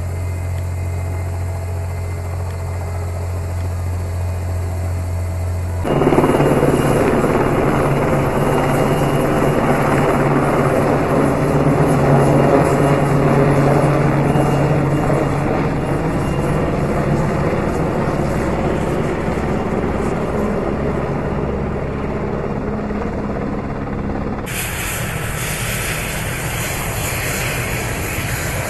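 Helicopter rotor and engine noise, steady throughout. About six seconds in it jumps abruptly louder and fuller. Near the end it turns hissier.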